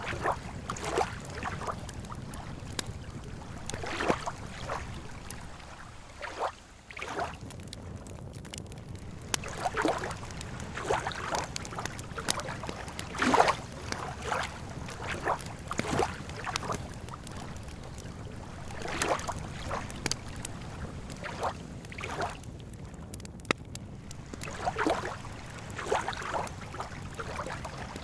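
Lake water lapping irregularly against the shore, in short splashes every second or two over a steady low background rumble.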